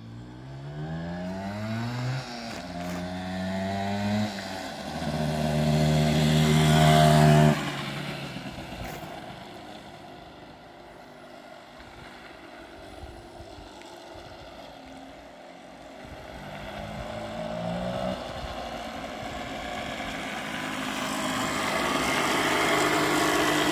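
Honda MTX 125R two-stroke single-cylinder trail bike accelerating through the gears, its engine note climbing and dropping back at each shift, loudest about seven seconds in and then fading into the distance. From about sixteen seconds in it is heard again, shifting up and growing louder as it comes back close.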